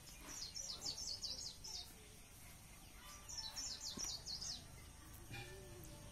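A small songbird sings two short phrases of rapid high chirps, about three seconds apart, faint over background noise.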